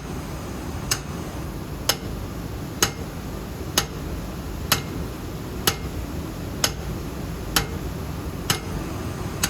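Sharp clicks repeating very evenly about once a second, over a steady low hum.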